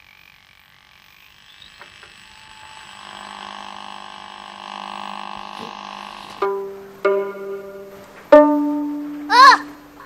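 An old television set warming up after being switched on: a steady low hum with a hiss that slowly builds. Then three plucked string notes ring out and die away, followed near the end by a short tone that slides up and back down.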